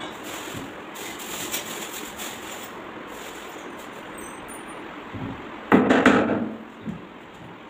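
Hammer nailing into the edge of a plywood panel: a quick cluster of loud blows about two-thirds of the way in, then one lighter blow. Before that, only a faint low hiss.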